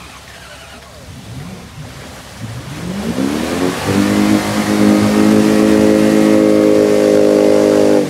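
Off-road vehicle's engine revving up over about a second and a half, then held steady at high revs.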